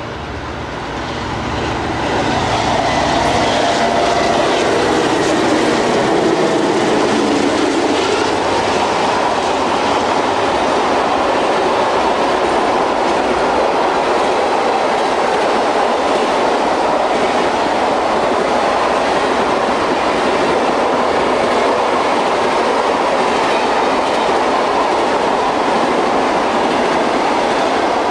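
A container freight train headed by several diesel locomotives passing close by: the sound grows louder over the first couple of seconds as the locomotives come past, then holds as a long, steady rumble and clatter of the wagons' wheels rolling over the rails.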